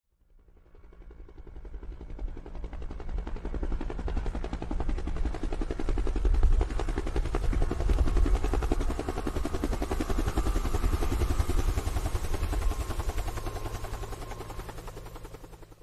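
Helicopter rotor chopping with a fast, steady beat, fading in over the first couple of seconds and fading out near the end.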